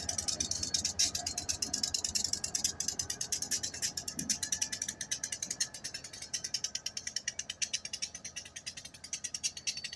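New England Central diesel locomotives moving past, heard as a rapid, even clicking and clatter of about ten clicks a second, which eases somewhat in the second half.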